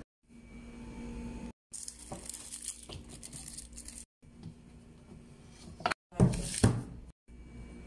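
Kitchen handling noise across several short clips, cut off by brief silent gaps: scratchy rustling and light knocks as food items are handled. A louder knock and clatter comes a little after six seconds.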